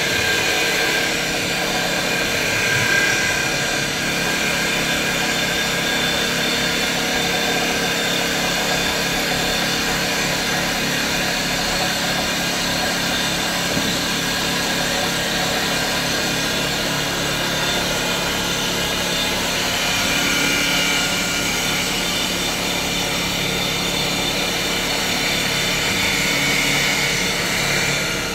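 CNC wood turning lathe running and cutting a long wooden blank. Steady machine noise from the motors and spindle together with the tool cutting the spinning wood, with several steady tones and slight swells in loudness now and then.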